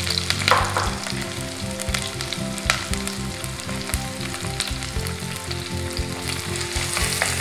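Shallots and chopped onions sizzling as they fry in hot sesame oil in a clay pot, stirred with a wooden spatula. The sizzle comes in a louder burst about half a second in, and a few light knocks of the spatula can be heard.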